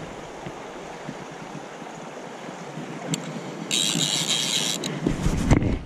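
Fly reel ratchet buzzing for about a second, starting past the halfway point, as the reel is wound. A steady wash of river water runs underneath, and low wind rumble on the microphone comes in near the end.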